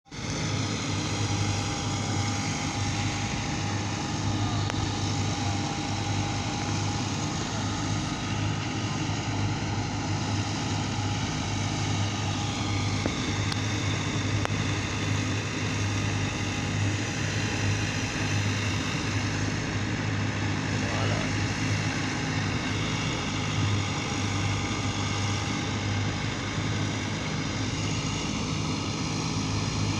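Engine of a harvesting machine running steadily at constant speed: a deep, even hum with fainter higher tones above it.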